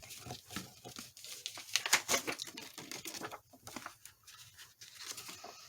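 Paper rustling and crinkling as a glued paper panel is pressed and rubbed down onto an envelope, in quick, irregular scratchy rubs that thin out in the second half.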